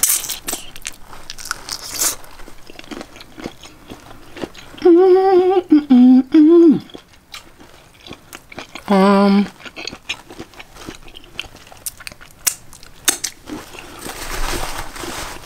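A person eating boiled shrimp: biting and chewing with many small wet clicks. She hums twice with her mouth closed, a wavering hum lasting about two seconds around five seconds in and a short one around nine seconds.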